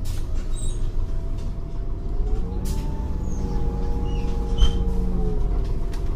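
Irisbus Cityclass bus's Cursor 8 CNG six-cylinder engine idling with a steady low rumble. Its whining note rises in pitch about two and a half seconds in and settles back down near the end, with a few faint clicks.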